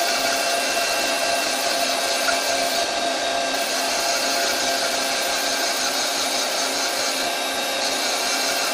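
CNC lathe running with its spindle turning at a steady speed of about 1000 rpm: an even machine whir with several steady whining tones over it.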